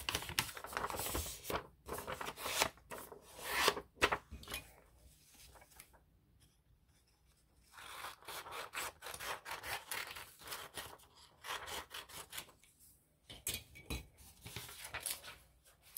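Paper being handled, rubbed and creased, in scratchy, rustling bursts with a short quiet stretch about a third of the way through.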